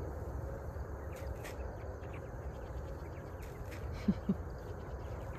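Field ambience: insects chirping over a steady low rumble, with two short low calls in quick succession about four seconds in.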